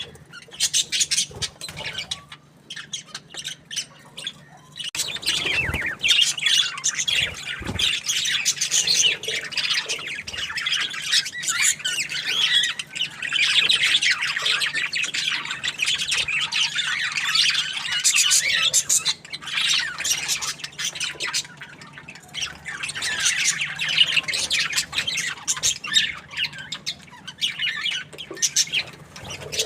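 Budgerigars chirping and chattering, scattered calls at first, then a dense, continuous chatter from about five seconds in.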